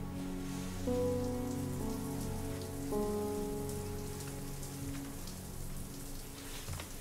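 Soft background film score of held chords that change about a second in and again about three seconds in, slowly fading, over a steady rain-like hiss.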